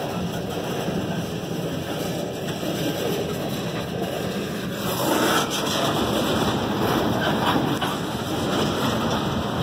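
Freight train tank cars rolling past: a steady rumble of steel wheels on the rails, with wind noise on the microphone.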